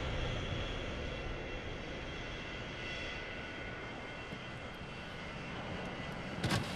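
Steady jet aircraft engine noise with a thin high whine running over it, and a single short thump near the end.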